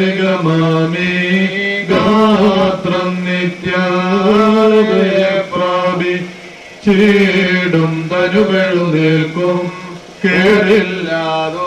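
Male voices chanting a church liturgy in long, slow phrases on a fairly steady pitch with small melodic turns, with short breaks between phrases.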